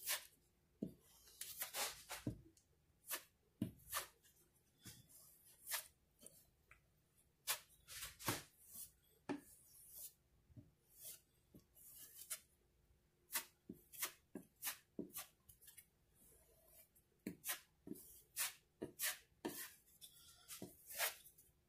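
Small putty knife spreading and scraping drywall joint compound over a patch on a drywall panel, in short irregular strokes about one or two a second, each a soft scrape.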